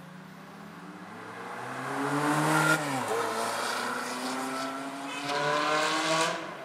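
Supercar engine revving hard under acceleration, its pitch climbing, dropping sharply about three seconds in, then climbing again to a second loud surge that cuts off suddenly near the end.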